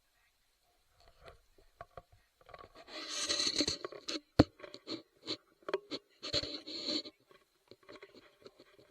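Close rustling and scraping, in two longer stretches, with scattered light clicks and one sharp knock about four and a half seconds in.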